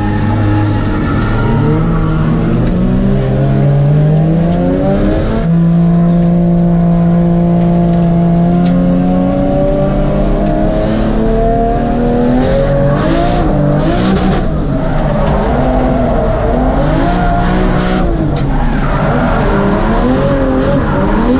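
Inside the cabin of a drifting Toyota Mark II (JZX100): the engine runs hard, its revs climbing over the first few seconds, held steady for a few seconds, then swinging rapidly up and down under throttle through the drift, with tyres skidding.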